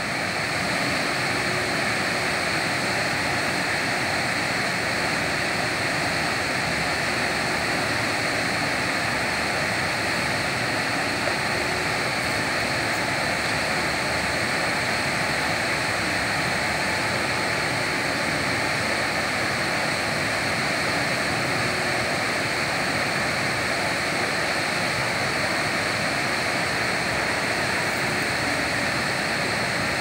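Steady rushing roar of a large waterfall pouring over rock, with a thin steady high tone above it.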